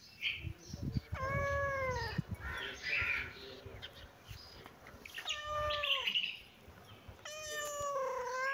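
Tabby-and-white cat meowing three times, each meow drawn out for about a second and falling in pitch at its end.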